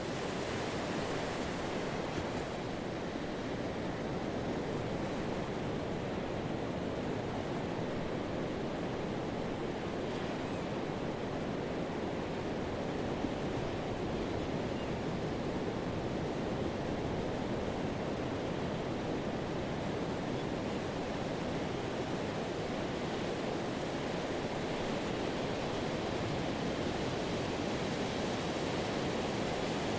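Pacific surf washing onto a sand beach: a steady, even rush of breaking waves and foam with no single crash standing out.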